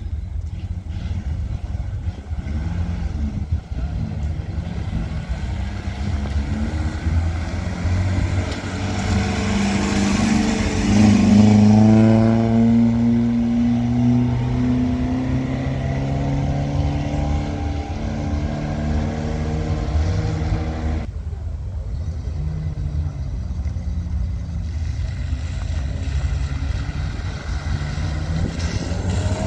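Engines of classic rally cars running. About ten seconds in, one car pulls away close by, its engine note rising and then fading.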